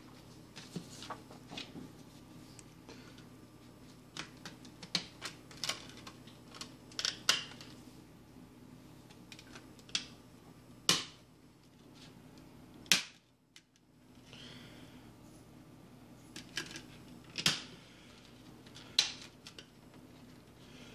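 Handling of a Blu-ray box set: scattered sharp clicks and taps at irregular intervals, a few of them louder, with light rustling in between.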